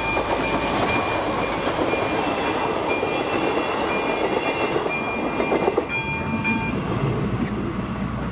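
Passenger train rolling over a level crossing, its wheels clattering over the rails, while the crossing's electronic warning ringer sounds a repeating high tone. The ringer cuts off about six and a half seconds in as the train clears the crossing.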